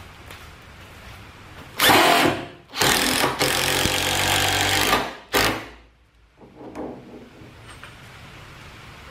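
Cordless drill driving a 2 7/8-inch HeadLok screw through a caster's mounting plate into the workbench's wooden leg: a short burst about two seconds in, a longer run of about two seconds, then a brief final burst.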